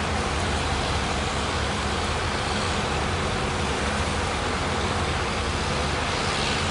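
Boat engines running steadily under a continuous wash of surf noise.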